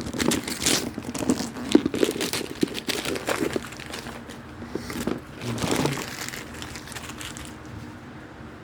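Packaging wrap being crinkled and rustled while an item is unwrapped from a parcel. Dense crinkling runs for the first three or four seconds, another burst comes about five to six seconds in, and it is quieter after that.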